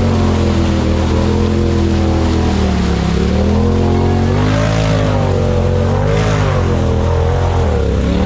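Side-by-side UTV engine revving up and down hard as its tall paddle mud tires spin in deep mud, the pitch rising and falling over and over while the machine fights to climb out of the hole.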